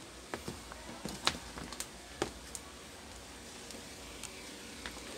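A few light clicks and taps from handling multimeter leads and tools on a workbench, mostly in the first half, over a faint steady room hum.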